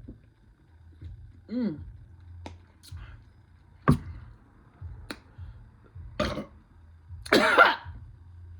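Eating sounds: a few sharp mouth-smacking clicks and a short pitched hum, then a loud throaty vocal sound, like a throat clearing, a little after seven seconds in.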